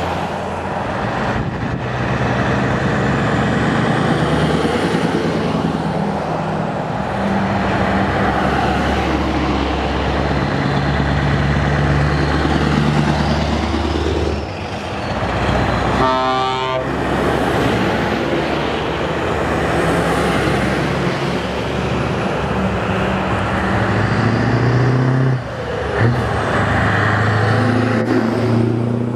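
Heavy trucks passing close by one after another, their diesel engines running and tyres rolling on the road. About halfway through, a horn sounds for about a second.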